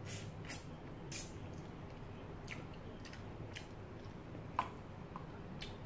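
Close-up chewing and soft lip smacking while eating with the fingers: irregular small wet clicks, with one sharper click about two-thirds through. A low steady hum runs underneath.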